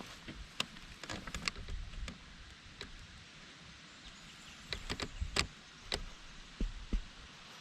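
Irregular sharp clicks and knocks, a few close together and then louder ones later, over a steady hiss.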